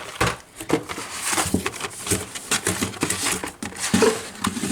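Carded Hot Wheels die-cast cars being handled and set down: an irregular run of clicks and taps from the plastic blister packs and cardboard backing cards.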